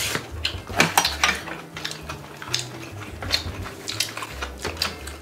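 Spoons and chopsticks clinking and scraping against ceramic rice bowls and a pan, in a run of short, sharp clicks.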